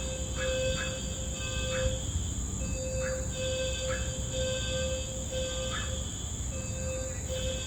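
A fire alarm going off in a run of short, low, repeating beeps during testing. Over it runs a steady high insect drone, with short chirps every second or so.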